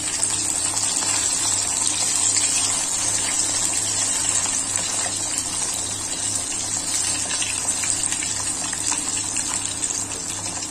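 Anchovy fish pieces deep-frying in hot oil in a wok: a steady, even sizzle of bubbling oil.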